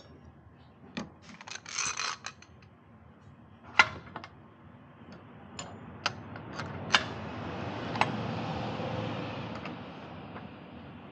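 Hand tools clinking and knocking against metal parts in scattered single strikes, the sharpest about four and seven seconds in. A low rushing noise swells in the second half and fades.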